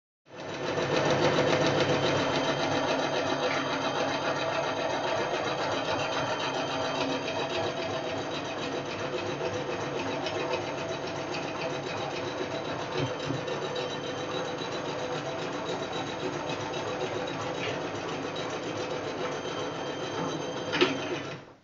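Singer Talent domestic sewing machine running steadily while sewing a zigzag overcast stitch along a fabric edge. Near the end there is a short click as the reverse lever is worked for a backstitch, and then the machine stops suddenly.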